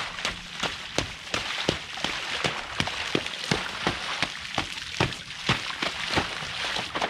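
Feet stomping and splashing in a rainwater puddle on pavement during repeated jumps, a quick run of splashes about two to three a second.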